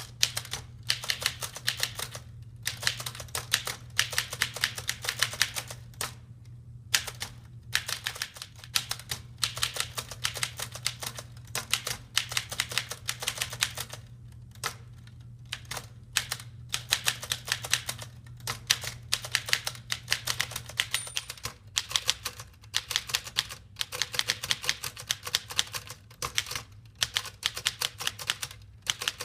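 1919 Underwood Standard Portable three-bank typewriter being typed on: quick runs of sharp key strikes broken by short pauses, over a steady low hum.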